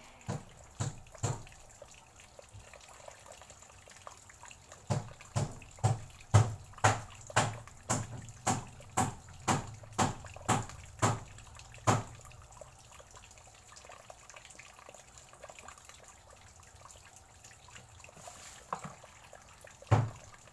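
Water dripping, about two drops a second, with a long regular run in the middle and a pause of several seconds before the drips start again near the end.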